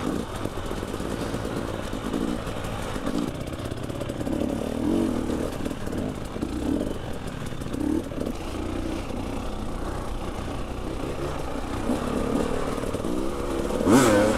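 Enduro motorcycle engine running while the bike is ridden at modest revs, with some clatter, and a sharp loud burst near the end.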